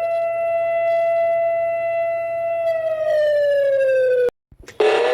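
Alarm siren holding one steady tone, then sliding down in pitch for over a second before cutting off suddenly. A moment later a new siren sound starts, rising in pitch.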